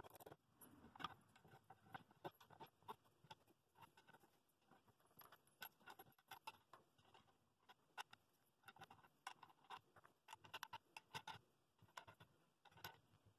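Faint, scattered clinks and clicks of steel washers and wing nuts being handled and threaded onto the threaded rods of a bowl glue press, with light knocks of wooden spacer blocks and a plywood disc being set in place.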